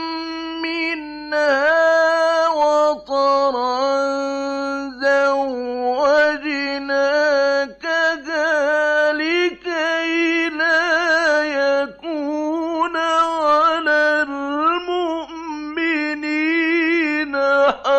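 A male Qur'an reciter chanting in the melodic mujawwad style: a single voice drawing out long, ornamented notes, broken by short pauses for breath.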